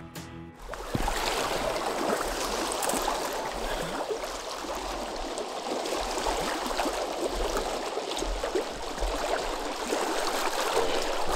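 Small waves lapping on a stony lakeshore: a steady wash of water noise with a low rumble underneath. Music cuts off about half a second in.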